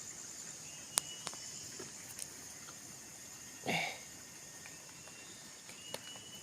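Steady high-pitched chirring of insects such as crickets, with a few sharp clicks and one brief rustle of handling a little over halfway through.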